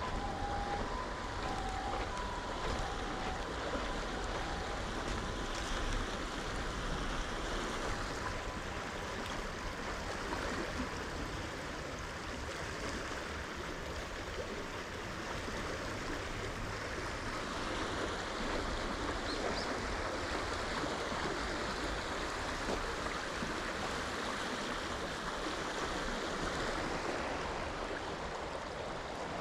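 River water flowing steadily, an even rushing noise with no change through the whole stretch.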